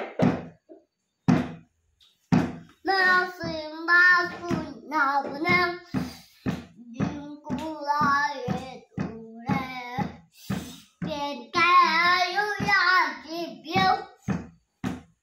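A small child singing, beating time with a gloved fist on a wooden chair's armrest, so regular knocks run under and between the sung phrases. There is a short break in the singing about a second in, broken only by a couple of knocks, and the singing picks up again after two seconds or so.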